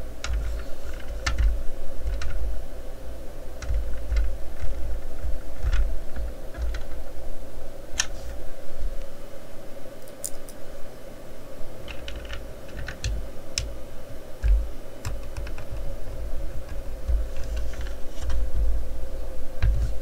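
A small screwdriver turning tiny screws into a plastic model car body, the screws going in stiffly: scattered light clicks and scrapes with soft knocks of the model and hands against the desk, over a steady hum.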